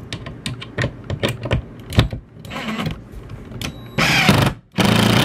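Several knocks and clicks, then about four seconds in a cordless drill runs briefly, stops, and starts again, driving a long screw through a wooden board into a wall stud.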